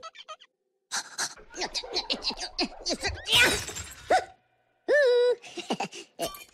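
Cartoon Minion voice babbling in squeaky gibberish, then a glass-shattering crash a little over three seconds in as the character smacks into the screen. A short held vocal cry follows near the end.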